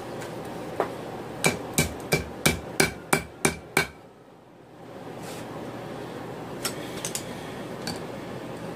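Hand hammer striking red-hot 5/16-inch round steel on an anvil while the tip is rolled into a hook: a single blow, then a quick run of eight ringing strikes at about three a second, and later a few lighter taps.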